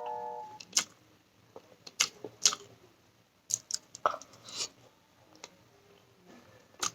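Close-up eating sounds: scattered sharp mouth clicks and short wet smacks of someone chewing food. A few notes of background music fade out in the first half second.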